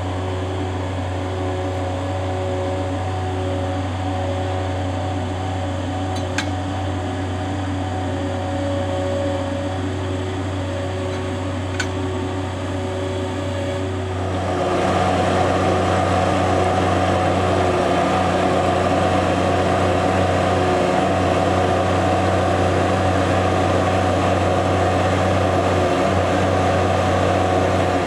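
Gehl Avantage mini loader with a trencher attachment running steadily; about halfway through the sound grows louder and rougher as the trencher wheel cuts into the soil.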